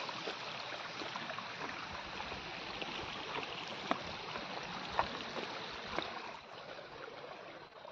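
Steady rush of running water in the wet-rice terraces, with a few light clicks about a second apart partway through.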